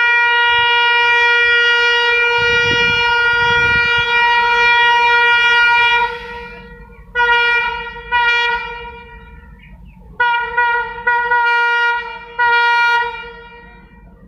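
WDM-3D diesel locomotive's horn sounding sharp and steady on one pitch: one long blast of about six seconds, then two short toots and, after a pause, a quick string of short toots, over a faint low engine rumble.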